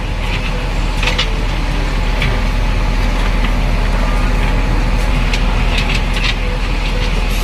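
Cement mixer truck engine running steadily, a low rumble with scattered clicks and rattles; it cuts off abruptly near the end.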